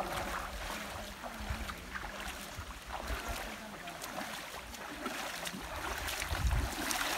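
Bare feet splashing and sloshing as several people wade through a shallow stream, with some wind on the microphone.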